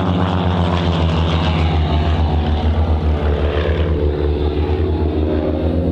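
Pair of Van's RV-8 aerobatic planes' piston engines and propellers running at full power in a pull-up, a steady loud drone with a fast propeller pulse.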